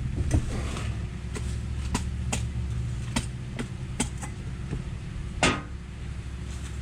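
A car engine idling steadily, with about eight sharp metallic clinks and knocks scattered over it, the loudest about five and a half seconds in, as tools and parts are handled at a golf cart wheel.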